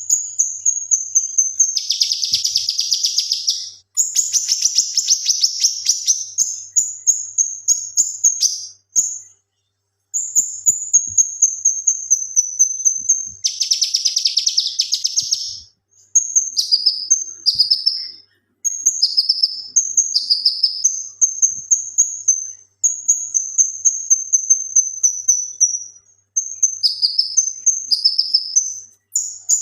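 Male cucak kinoi singing in fast, very high-pitched chattering phrases, broken by three harsh, rapid scratchy bursts ('tembakan') near the start and about halfway. Later phrases turn to quick notes that slide downward in pitch, with short pauses between phrases.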